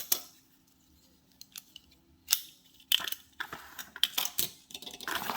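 Scattered sharp clicks and light rattling from handling a plastic folding utility knife, with a near-quiet gap after the first clicks.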